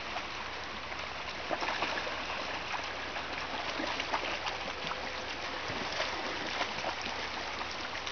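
Shallow rocky creek running steadily over stones, with light splashing from dogs wading in the water.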